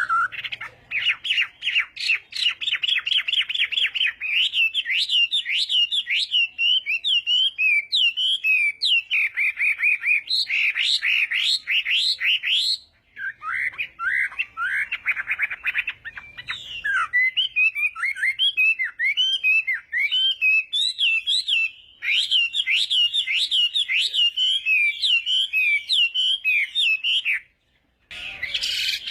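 Chinese hwamei singing a loud, continuous song of rapid, varied whistled phrases and trills, broken by a few short pauses and a brief silence near the end.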